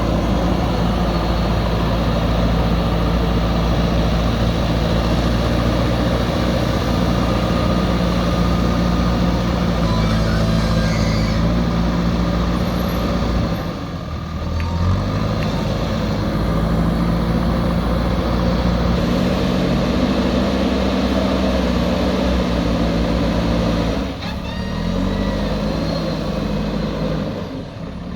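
Diesel engine of heavy earthmoving machinery running steadily under work, its note shifting and the level dipping briefly twice.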